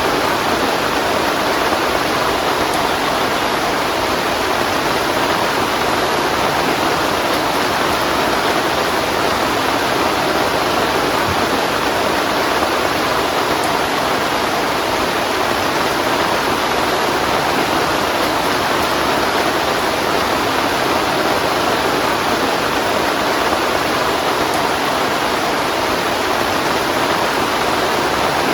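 Heavy rain falling, a loud, even, unbroken hiss.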